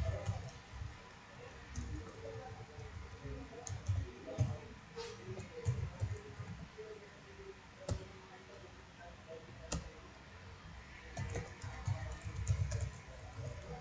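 Typing on a computer keyboard: irregular key clicks in short runs and pauses, with soft low thuds under them.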